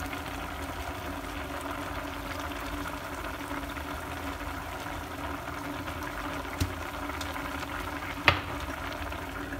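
Soup of fish and greens boiling hard in a stainless steel pot, bubbling steadily. A short knock comes a little before the end, and a sharper click, the loudest sound, just after it.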